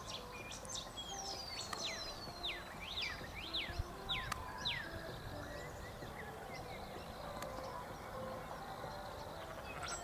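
Birds calling: a run of about six quick, sharply falling whistles between one and five seconds in, over faint scattered chirps of more distant birds.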